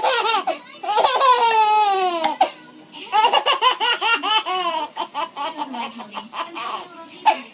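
Baby laughing: a long, high-pitched peal that falls in pitch, then a run of quick, repeated laughs.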